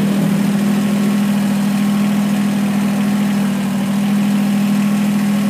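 Kubota BX2380 sub-compact tractor's 898 cc three-cylinder diesel engine idling steadily at about 1,500 rpm.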